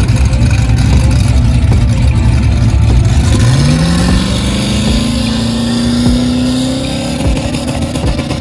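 Drag car engine rumbling heavily, then its pitch climbs smoothly about three and a half seconds in and holds high as it accelerates.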